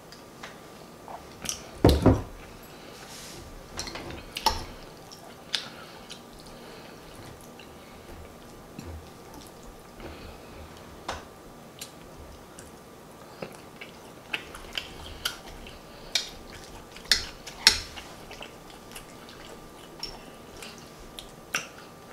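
Close-miked eating sounds: wet chewing and smacking on smothered turkey wings, with scattered sharp clicks of a fork against the plate. A louder thump about two seconds in, and another cluster of sharp clicks near the end.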